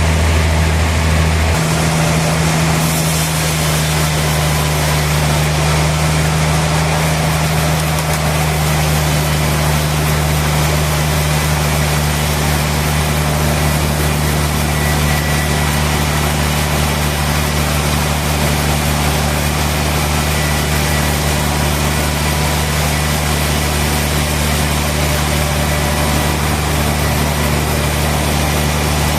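Sawmill machinery running steadily: a continuous low motor drone with a dense, even rushing noise over it, shifting slightly in pitch about a second and a half in.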